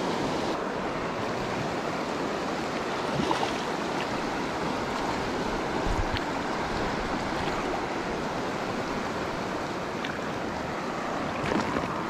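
A fast-flowing river rushing steadily over a rocky riffle.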